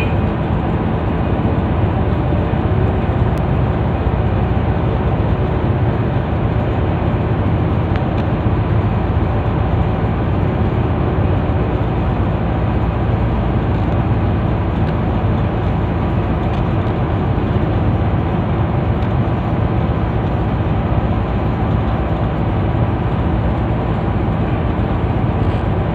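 A boat engine running steadily: an even low drone with a constant hum that does not change in pitch or level.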